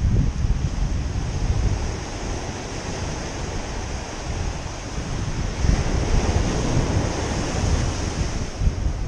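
Small surf breaking and washing up a sandy beach, with wind buffeting the microphone. A wave breaks and washes in louder about six seconds in.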